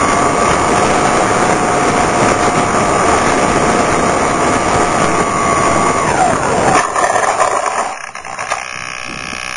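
Wind rushing over the microphone with the steady whine of the Multiplex TwinStar II's twin brushless electric motors and propellers. About six seconds in, the whine falls in pitch as the motors are throttled back. A few knocks follow, and the sound drops to a much quieter level.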